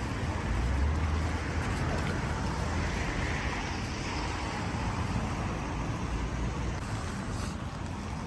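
Steady road traffic noise, a low rumble of vehicles.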